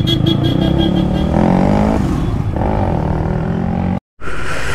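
Motorcycle and car traffic running, with a rapid high beeping in the first second that fades out. The sound cuts out abruptly about four seconds in.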